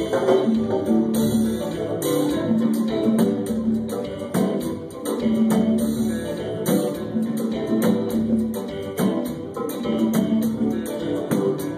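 A band playing music: guitar over a steady rhythm of hand percussion, with held bass notes.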